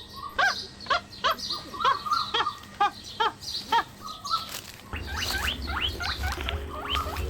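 An animal calling over and over, short sharp calls about two a second, with birds chirping. From about five seconds in, a steady low hum comes in under the chirping.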